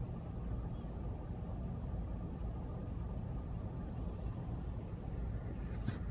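Steady low rumble of an idling engine, with a brief click near the end.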